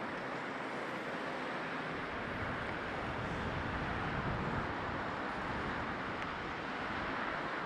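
Road traffic noise from a congested multi-lane road: a steady hum of many slow-moving cars, vans and trucks, with a low rumble that swells for a couple of seconds in the middle.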